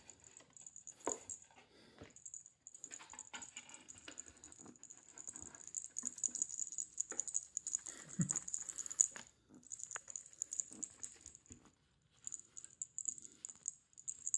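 Kitten's paws and claws scrabbling, tapping and knocking on a wooden box tunnel, a run of light clicks and scratches with a louder thump about eight seconds in. A high hiss comes and goes behind it.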